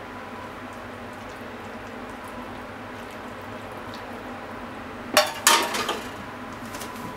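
A couple of sharp clatters about five seconds in, as chopsticks knock against a ceramic bowl. A steady background hum runs underneath.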